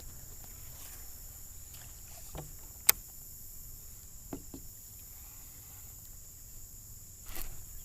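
Quiet kayak ambience on the water: a steady faint high-pitched hiss, with a few small clicks and knocks from gear against the kayak, the sharpest about three seconds in.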